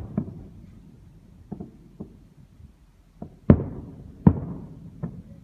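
Fireworks exploding: a run of sharp booms, each trailing off in an echo, the two loudest a little past the middle, with fainter bangs between.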